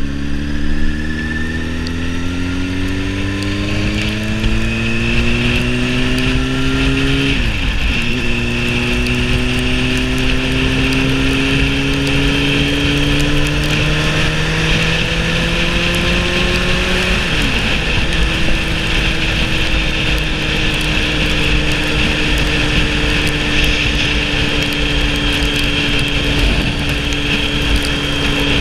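Sport motorcycle engine accelerating hard, its pitch climbing steadily. It drops sharply at two upshifts, about 7.5 and 17.5 seconds in, then settles to a steady cruise. A constant rush of wind noise runs under the engine.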